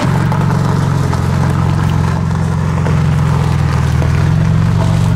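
Porsche 911 (996) flat-six engine idling, a loud, steady low running note with no revs.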